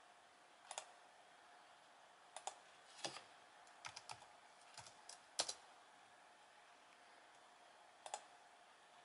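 Computer keyboard keystrokes and mouse clicks, faint and sparse: a few paired clicks, a short run of typing in the middle, and one more double click near the end, over a faint steady hum.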